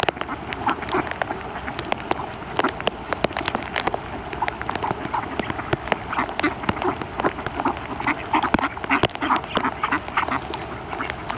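A flock of mallard ducks quacking, many birds calling over one another in short, repeated quacks, with frequent sharp clicks throughout.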